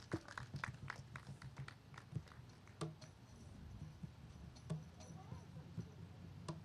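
Scattered hand claps from a small crowd, thick at first and thinning to a few isolated claps after about two seconds, over a low steady hum.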